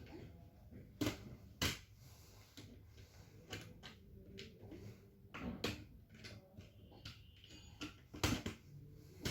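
Scattered sharp clicks and knocks of laptop parts being handled and pried apart during disassembly, the loudest about a second in, again about half a second later, around the middle and near the end.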